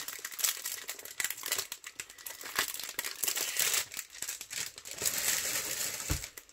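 Thin clear plastic packaging crinkling and rustling as it is handled and slid off a rolled diamond-painting canvas, with one low thump near the end as the roll is set down.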